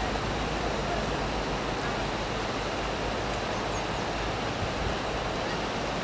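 Steady rushing of a whitewater river running over rocks and small rapids.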